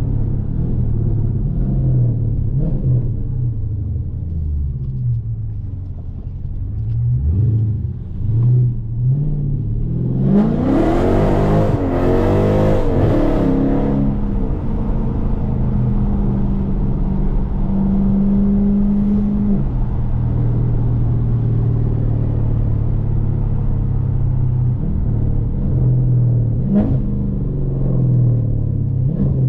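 2020 Dodge Challenger Scat Pack's 392 (6.4-litre) HEMI V8 running on the road. About ten seconds in the engine revs climb sharply under hard acceleration, then hold at a steady higher pitch for a few seconds before settling back to a lower cruise.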